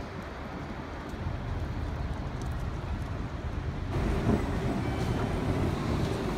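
Street ambience: a steady rumble of road traffic, which turns louder and brighter about four seconds in.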